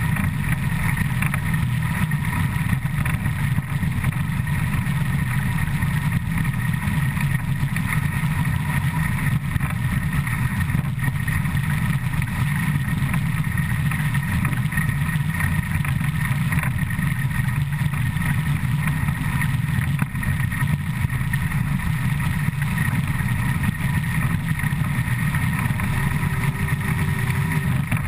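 Steady, loud running noise of steam locomotive 475.179's driving wheels and side rods at about 100 km/h, a dense low rumble and clatter heard close up beside the wheels, with no single knocks or chuffs standing out.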